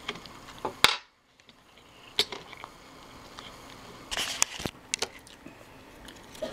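Scattered light clicks, taps and scraping from handling an Apple Magic Mouse and its AA batteries while the old cells are worked out of the battery compartment. One sharp click comes just under a second in, and a short burst of rattling and scraping follows later.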